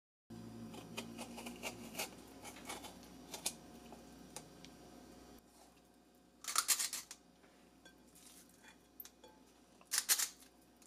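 Faint rustles and small clicks of a boiled cabbage leaf being rolled on a plate. Then a trigger-release ice cream scoop makes two short scrapes, its sweeper blade pushing the meat filling out onto a cabbage leaf.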